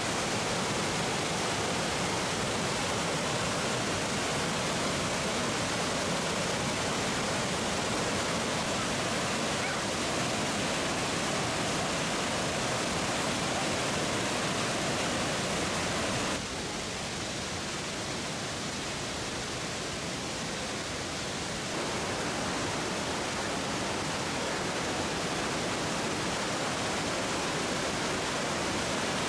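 Steady rush of falling water from a waterfall, with no distinct events. It drops abruptly in level and tone about halfway through and shifts back a few seconds later.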